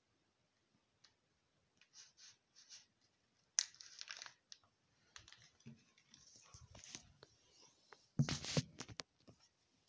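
Short, faint bursts of rustling and crinkling as a hand rummages in a pocket of a hanging advent calendar to draw out the day's tea. Near the end come louder knocks and rubbing as the phone is handled.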